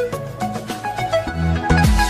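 Background music with a steady beat of repeated plucked notes; a deep kick drum and bass line come in about one and a half seconds in.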